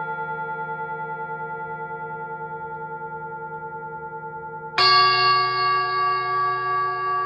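Singing bowl ringing with a slow pulsing beat and gradually fading, then struck again about five seconds in, ringing out louder with several overtones.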